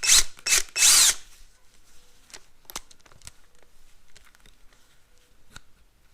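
Power drill run in three short bursts in the first second or so as its chuck is tightened on a twist drill bit, followed by scattered light clicks and handling taps.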